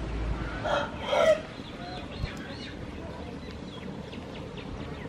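A chicken calling: two loud calls close together about a second in, then fainter, shorter calls.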